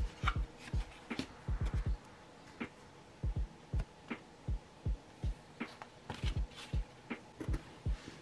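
Soft background music with a low, thumping kick-drum beat, a few beats a second.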